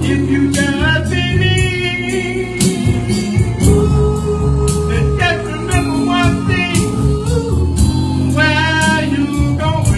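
Live gospel band playing, with a singer's wavering lead voice over bass, guitar and drums keeping a steady beat.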